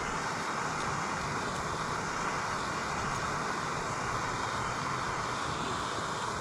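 Steady, even rushing of strong wind against the tent, without letting up.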